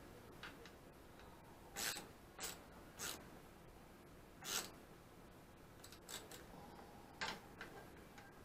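Socket ratchet clicking in a handful of short bursts with pauses between, as nuts at a small engine's intake are worked by hand.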